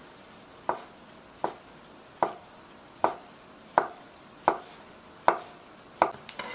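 Knife chopping on a cutting board: eight slow, evenly spaced chops, about one every three-quarters of a second.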